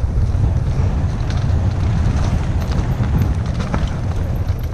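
Wind buffeting the camera microphone on a Specialized Stumpjumper trail bike riding fast down a rough dirt downhill trail, a steady low rumble. Tyres run over dirt and roots, and the bike gives off scattered knocks and rattles over the rough ground.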